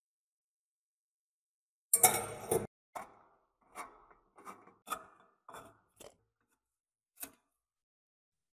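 Silent for about two seconds, then a short loud burst of metal-on-metal scraping or rattling, followed by a string of sharp metallic clicks and knocks as brass blowtorch parts and steel tools are handled and fitted together.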